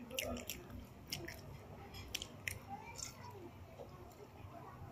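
Faint chewing, with small wet mouth clicks and smacks scattered through it.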